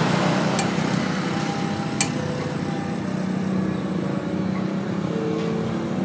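Steady engine hum over a hiss, like a motor vehicle running nearby, with a single light click about two seconds in.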